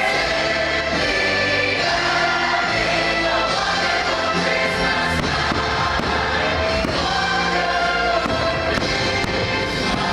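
Music with a choir singing, steady throughout.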